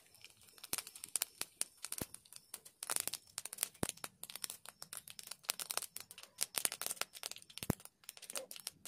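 Mustard seeds spluttering in hot oil in a kadai: a dense, irregular run of sharp pops and crackles. This is the tempering stage, once the oil is hot.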